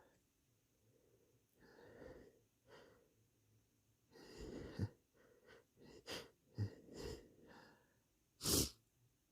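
A person sniffling and holding back sneezes: breathy inhales, a build-up that ends in a sharp stifled burst, a string of short sharp sniffs, and one louder burst near the end.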